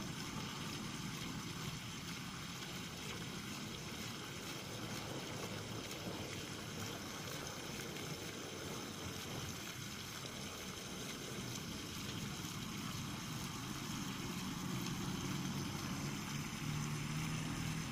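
Water gushing steadily from a rusty metal pipe outlet and splashing onto grass, over a steady low hum that grows a little louder near the end.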